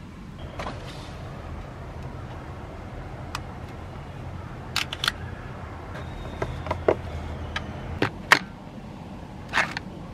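Sheets of paper being handled under a small handheld hole punch: light paper rustling, then a run of sharp clicks from about the middle on, several in quick pairs, as the punch snaps through the receipts. A low steady hum runs underneath.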